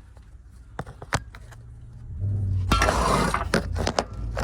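Sharp metal clicks as a valve spring compressor and the valve keepers are worked on a cylinder head. From about two seconds in, a low steady hum comes in, with a loud rushing noise lasting about half a second.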